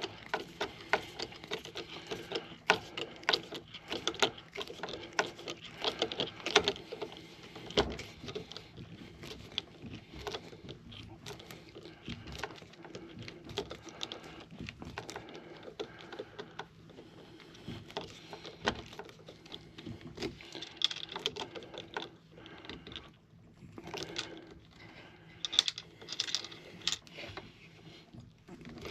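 A small stainless wood screw being turned into a rifle stock with a hand screwdriver: a long run of irregular clicks and small knocks as the tool turns and repositions.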